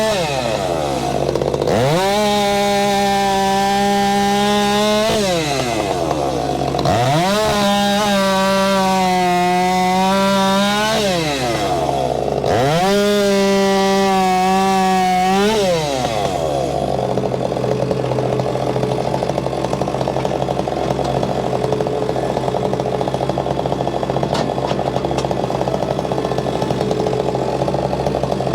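Stihl MS462C two-stroke chainsaw revving up to full throttle and dropping back three times, each run about four seconds, as it cuts through walnut logs. After that it runs steadily at a lower speed.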